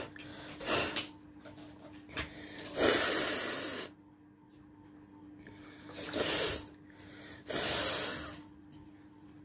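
A person blowing and snorting air hard through the nose in four hissy bursts; the second and fourth last about a second each.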